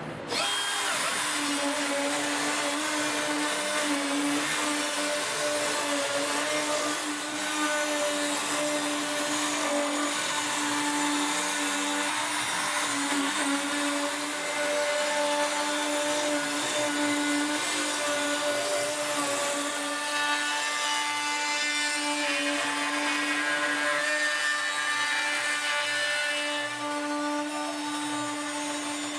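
800 W spindle of a CNC-STEP 3040 CNC router, switching on suddenly and running steadily with a high whine while it mills concentric circular grooves into an end-grain hardwood board, with the hiss of the bit cutting wood.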